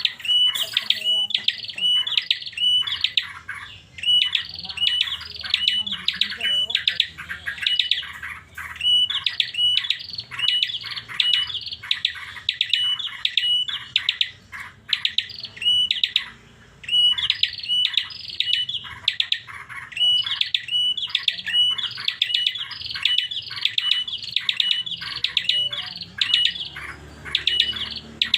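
A prinia (prenjak) singing an unusual-sounding song: quick repeated phrases of high notes, each holding a short steady whistle, broken by brief pauses.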